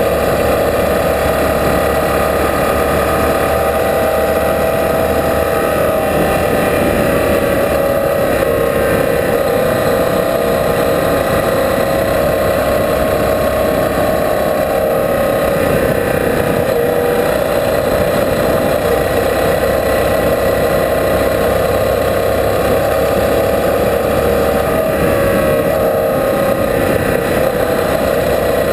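Motorcycle engine running steadily at cruising speed on a gravel road, its tone wavering a little with the throttle, over a low rush of wind and road noise.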